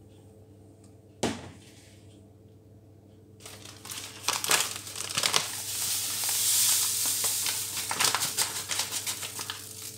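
A bag of sugar crinkling and rustling as it is picked up, opened and tipped, with sugar pouring into a bowl of eggs; a single knock about a second in.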